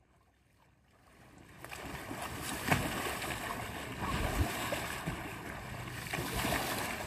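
Silent for about the first second, then water churning and splashing around a freestyle whitewater canoe as the paddler spins and cartwheels it with hard paddle strokes, with one sharp splash about two and a half seconds in.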